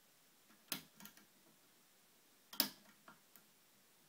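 Metal lock pick and tension tool clicking and ticking in the keyway of a brass five-pin Vita half euro cylinder during single-pin picking, with four pins set and the fifth still being hunted. Two sharp clicks, one under a second in and one a little past the middle, with a few fainter ticks around them.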